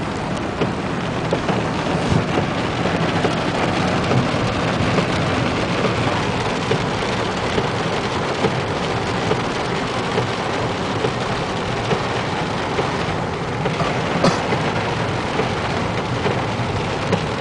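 Heavy thunderstorm rain falling steadily, with a dense patter of many small drop ticks.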